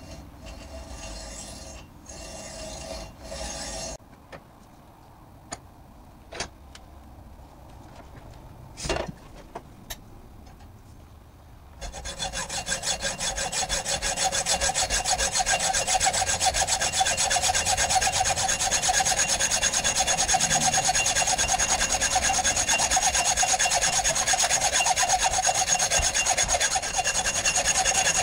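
Hacksaw cutting through a steel shotgun barrel. A few strokes at the start, then a quieter pause broken by a few clicks and a knock. From about twelve seconds in comes louder, steady, fast back-and-forth sawing.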